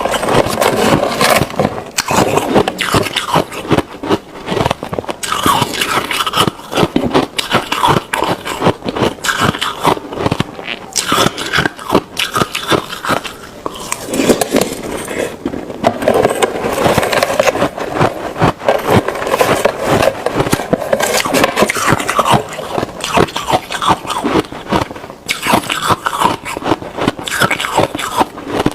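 A person chewing and crunching mouthfuls of ice, with dense, irregular cracking and crunching and only brief pauses.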